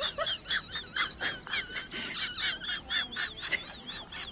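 Birds chirping in a rapid, busy chorus: short, high, arched notes repeat several times a second, with several calls overlapping.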